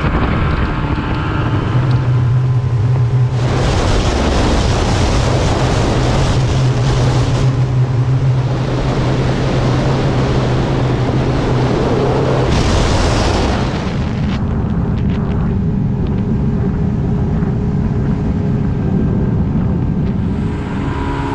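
Mercury Optimax two-stroke outboard running at cruising speed, a steady whining engine note under the rush of wind and water on the microphone. The wind and spray noise is loudest through the middle and eases off in the last several seconds.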